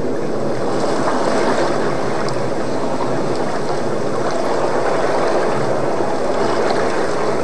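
Water churning and rushing in a large whale tank, a steady, even wash of sound.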